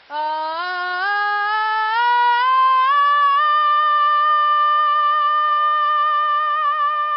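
A teenage boy singing a vocal warm-up on one vowel. His voice climbs in small steps for about three seconds, then holds a long high note with a slight waver.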